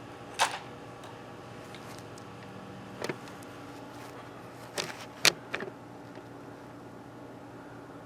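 Crossman Diamondback Nitro Piston .177 break-barrel air rifle being fired and worked: a sharp crack about half a second in, a small click around three seconds, then three quick sharp clacks around five seconds, the middle one the loudest.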